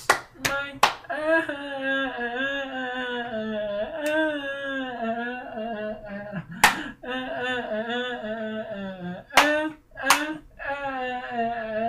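A voice singing long wordless notes that slide slowly in pitch, with hand claps: three quick ones at the start and a few more scattered later.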